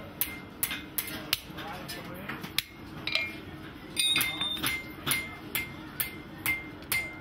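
Blacksmith's hammer striking metal on an anvil: a steady run of ringing blows, about two to three a second, with a short break in the rhythm midway.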